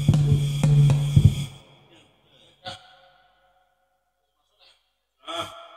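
Drumming with a steady beat, about three strokes a second over a low steady hum, stops about a second and a half in. Then a single sharp knock with a short ringing tone, and near the end a brief voice.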